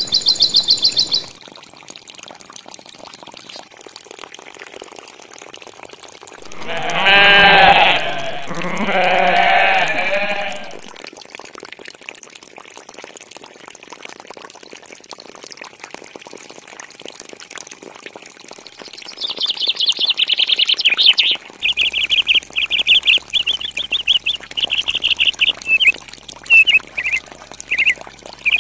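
Livestock bleating twice, two long wavering bleats close together, framed by bird chirping: a short high run at the start and, from about two-thirds of the way in, quick repeated chirps that go on to the end.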